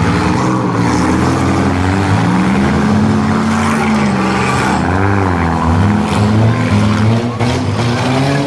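Compact 4- and 6-cylinder demolition derby car engines revving up and down, several at once, with a few short knocks about six and seven seconds in.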